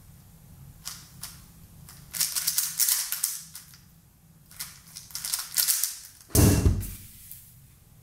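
3x3 speed cube being turned by hand in quick bursts of clicking turns, the pieces snapping past each other. About six seconds in, a loud thump as the cube is put down at the end of the solve.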